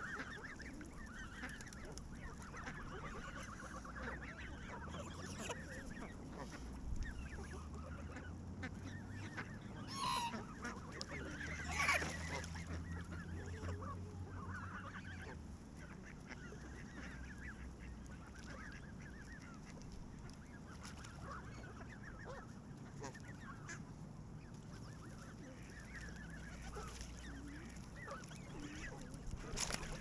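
A flock of Canada geese honking, many short calls overlapping on and off throughout, with a few louder calls near the middle.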